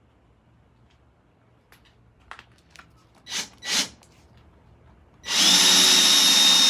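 A few light clicks and two short swishes, then an electric drill starts about five seconds in and runs at a steady high speed, drilling a hole for a threaded insert.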